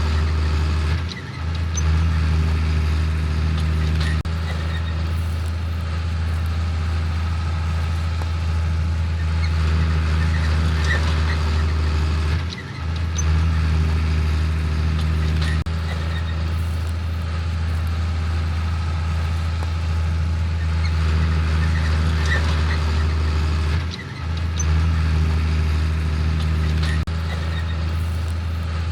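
Heavy farm machinery running steadily under a deep engine hum, dipping briefly about once every eleven seconds.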